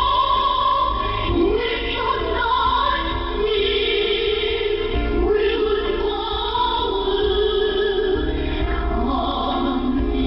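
Choral singing with music, heard through a shortwave radio receiver: narrow and band-limited, with nothing above the top of the audio bandwidth. Held, wavering sung notes carry on through without a break.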